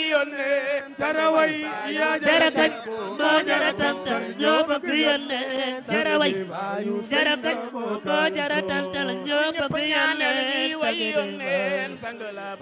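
A group of voices chanting a Sufi devotional song together, with a wavering, gliding melody over a held low note.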